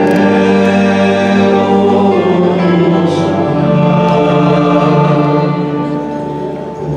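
Music with singing, held notes and chords shifting every second or two, with a short dip in loudness near the end.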